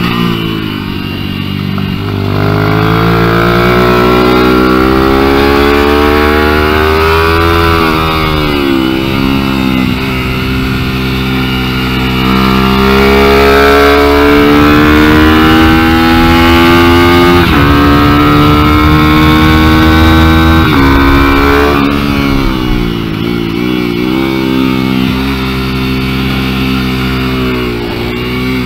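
Onboard sound of a mini-bike's small single-cylinder engine at speed. It revs up with a climbing pitch several times, drops sharply at each upshift or lift off the throttle, and dips lowest once for a corner before it winds up again.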